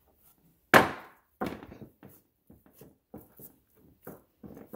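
A loud thunk less than a second in as a glass loaf pan is set down on a cutting board, then a lighter knock. A run of soft, irregular taps and bumps follows as bread dough is put into the pan and pressed down by hand.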